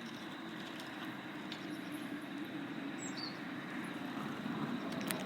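Steady rushing noise of a passing vehicle, slowly growing louder toward the end, with a brief high chirp about three seconds in.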